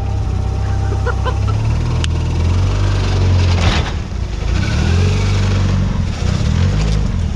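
Mitsubishi Lancer Evolution's turbocharged four-cylinder engine running at low revs while the car is maneuvered, the revs rising and falling a few times. A brief noisy rush comes a little past halfway.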